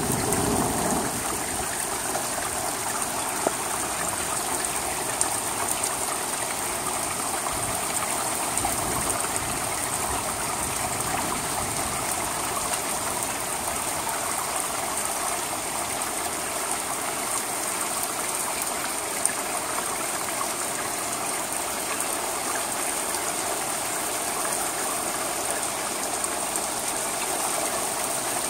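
Steady rain falling on an asphalt-shingle roof and gutter, a continuous even hiss, with a few sharp taps of single drops.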